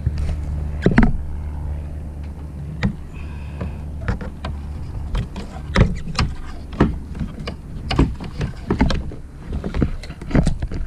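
Irregular knocks and clacks of a freshly gaffed halibut being hauled and handled on a plastic kayak: fish, gaff and gear bumping against the hull. They come a few at first and thicker from about four seconds in, over a low steady rumble that fades around then.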